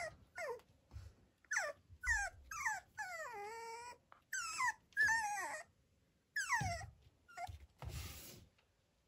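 Two-month-old toy poodle puppy whining: a string of short, high-pitched cries that slide downward in pitch, with one longer, wavering whine about three seconds in.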